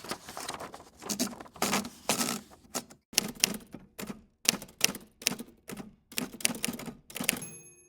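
Typewriter keys clacking in irregular runs of strokes, with a short ringing tone near the end.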